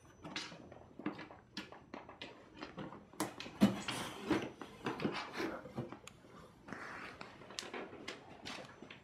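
Cats scrambling in a cardboard box: irregular scratching, rustling and knocks of paws and claws on the cardboard, busiest and loudest in the middle.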